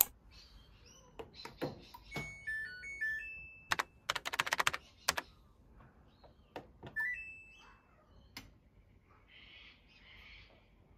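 Samsung BubbleWash 8.5 kg front-loading washing machine being switched on and started. A short chime of stepped electronic beeps plays about two seconds in, a burst of rapid clicking follows about four seconds in, and a single beep sounds about seven seconds in as the start button is pressed. Separate button clicks fall between them.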